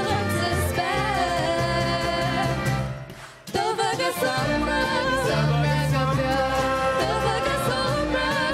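Young voices singing in harmony over a traditional Irish band of double bass, guitar, accordion and fiddle. The music dips briefly about three seconds in, then comes back in fuller.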